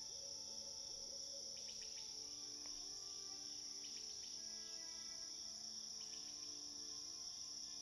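Faint nature-ambience outro track: a steady chorus of crickets with soft, slowly changing held notes of ambient music beneath it, and a few short clusters of ticking chirps.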